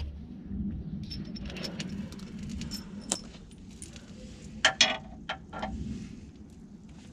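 Light metal clinks and rattles as a bolt is handled by hand, with a louder run of clinks about two-thirds of the way through.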